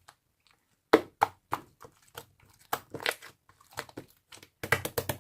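Slime being squeezed and kneaded by hand, giving irregular sharp clicks and pops, with a quick run of pops near the end.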